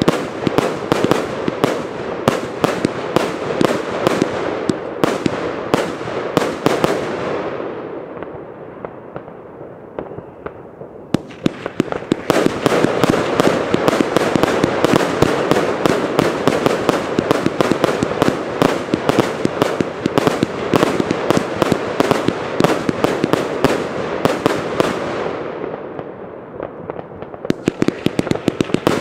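Consumer firework batteries (cakes) firing: a dense, rapid string of bangs and crackles. It dies down to a lower rumble about eight seconds in and starts again about three seconds later, then fades again and picks back up just before the end.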